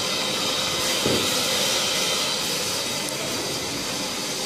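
A steady hiss, with a soft knock about a second in.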